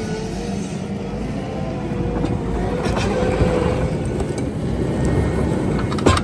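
Engine of a digging machine running steadily, with one sharp knock about six seconds in.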